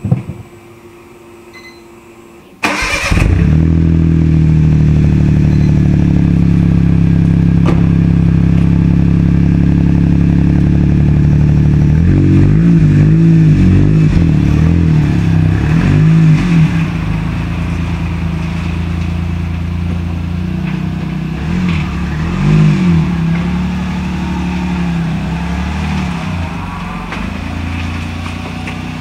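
Small 660 cc kei-car engine starting about three seconds in, then idling steadily through its existing rear muffler. The owner calls the exhaust not that loud. From about twelve seconds the revs rise and fall as the car pulls away, and the sound grows fainter toward the end.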